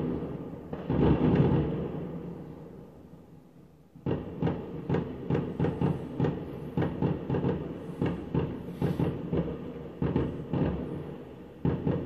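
Fireworks going off: a loud bang about a second in that fades slowly, then from about four seconds a rapid string of sharp cracks, roughly three a second, for several seconds, and another bang near the end.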